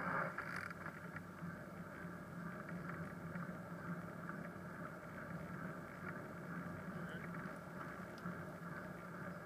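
Steady, muffled rumble of a bicycle riding on a wet road, picked up by a camera mounted on the bike, with small scattered rattling clicks.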